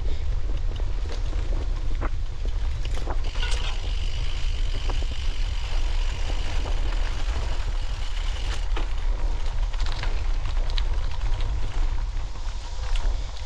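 Steady low wind rumble buffeting the microphone, with scattered light clicks and a faint thin high tone held for about five seconds in the middle.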